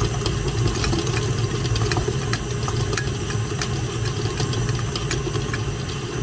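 Electric mixer running steadily, beating soft butter with vanilla extract until smooth: a low motor hum with occasional light clicks.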